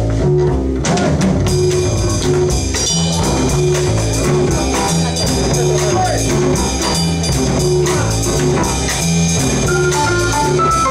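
Live jazz trio of double bass, drum kit and acoustic piano playing together. The bass moves in even steps from note to note under steady cymbal strokes and piano chords.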